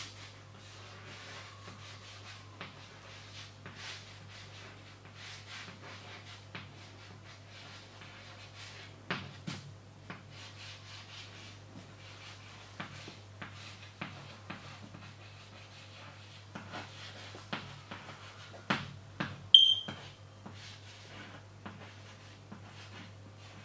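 Chalk writing on a green chalkboard: a long run of short scratches and taps as the letters go up. About twenty seconds in, the chalk gives a short high squeak, the loudest sound.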